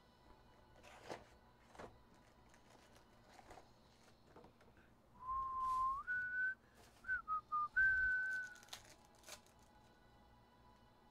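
A person whistling a short tune of a few pure notes: a held low note that slides up, a higher note, a few quick shorter notes, then a higher held note, about three seconds in all.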